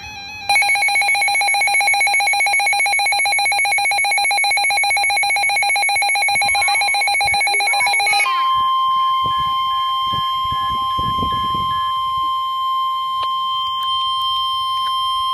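A rapidly pulsing electronic alarm with a ringing quality sounds for about eight seconds. It then gives way to a single steady tone just above 1 kHz, the 1050 Hz Warning Alarm Tone that NOAA Weather Radio sends ahead of a National Weather Service warning.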